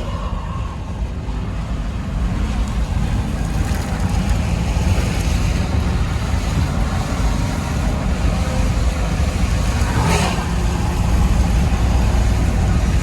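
Strong storm wind buffeting the microphone as a tornado passes: a loud, steady low rumble, with a sharp gust about ten seconds in.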